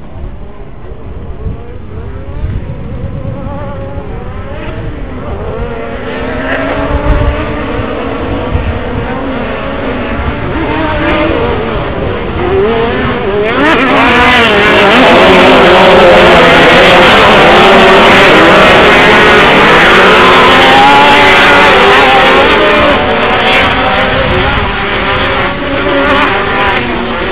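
A pack of Pro Buggy off-road race cars running and revving on a dirt track. Many engine notes rise and fall over one another, and the sound builds to its loudest about halfway through as the field passes close.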